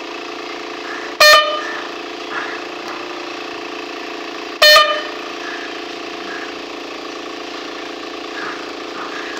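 Air horn giving two short, loud blasts about three and a half seconds apart, over a steady drone of lower tones.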